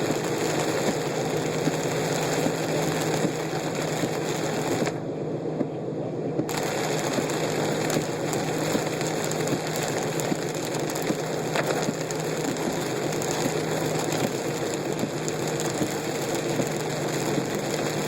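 Steady car-interior noise while driving through a heavy rainstorm and flooded road: a low engine and road hum under a fast, dense rattling patter.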